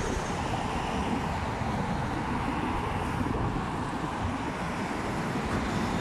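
Steady road traffic noise from cars driving along a city avenue, a continuous even hum with no single vehicle standing out.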